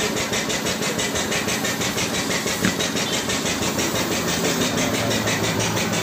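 A motor running steadily with a fast, even pulse, and a short knock about two and a half seconds in.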